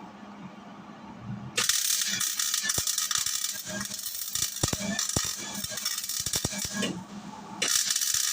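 Welding arc crackling and spitting as a bead is laid, starting about a second and a half in, breaking off briefly near the end and then striking up again.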